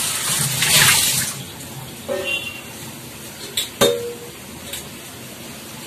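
Watery chickpea curry bubbling in an aluminium kadai on the stove, with a loud hiss for about the first second, then a few light metallic clinks against the pan.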